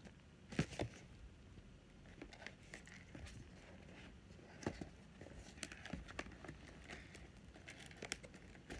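Cardboard toy packaging handled and opened by hand: faint, scattered rustling and crinkling with small sharp clicks, a couple of sharper ones about a second in and another near the middle.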